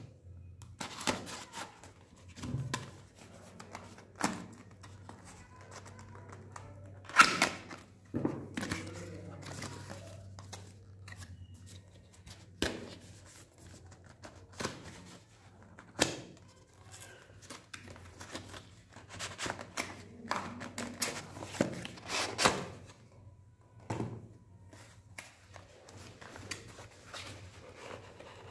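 Plastic shrink-wrap and paper-and-cardboard packaging of a boxed computer mouse being handled and opened: irregular crinkling, rustling and tearing with scattered sharp taps and clicks, the loudest a knock about seven seconds in. A faint steady low hum lies underneath.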